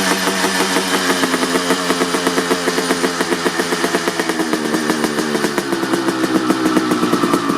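1989 Honda CR250R's 250 cc two-stroke single, fitted with an FMF Gnarly expansion chamber and Pro Circuit R-304 Shorty silencer, running at a slightly uneven, steady idle while warming up from a cold start.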